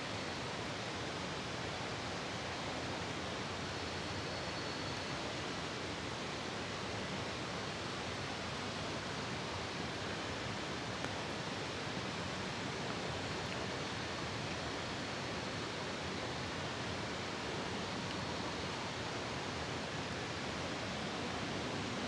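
Steady, even rushing noise of outdoor ambience, with no distinct events, bell or train sound in it.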